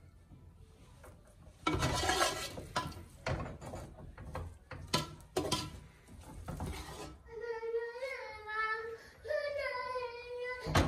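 Metal serving spoon scraping and knocking against the inside of an aluminium pressure cooker as rice is lifted out, in a run of sharp strokes starting about two seconds in. In the last few seconds a young child's high, drawn-out voice wails or sings.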